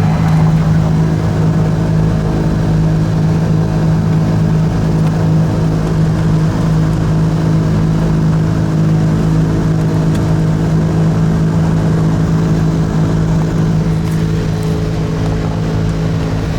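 The twin Continental TSIO-520 turbocharged six-cylinder engines and propellers of a 1980 Cessna 340A running with a steady drone and strong hum, easing off slightly near the end.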